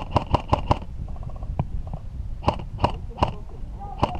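Airsoft guns firing: a quick string of about four pops, then three more evenly spaced shots, and one more near the end, over a low rumble.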